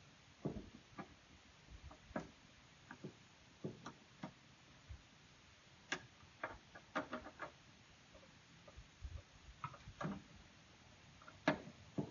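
Scattered light clicks and taps of small hardware and plastic parts being handled while bolting a deer corn feeder onto a paint bucket, irregular, with a sharper knock near the end.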